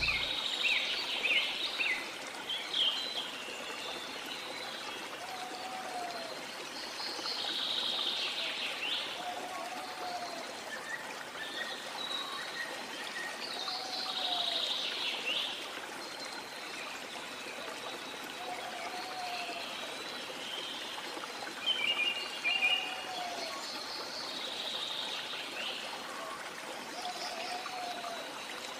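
Outdoor nature ambience: a steady hiss with birds calling over it. A short low call repeats about every four seconds, among scattered clusters of higher chirps and trills.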